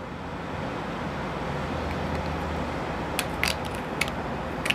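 Steady low mechanical rumble that swells a moment in and then holds, with a few sharp clicks in the second half as PVC pipe fittings are handled.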